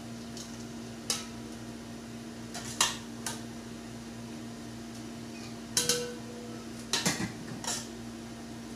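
Metal spoon knocking and scraping against the sides and rim of an aluminium cooking pot as cooked rice is spooned in: a handful of sharp clinks, loudest about three seconds in and again around six and seven seconds, over a steady low hum.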